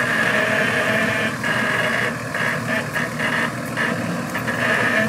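Off-road 4x4 vehicle running, a steady engine sound with a high whine over it and short dips in level every second or so.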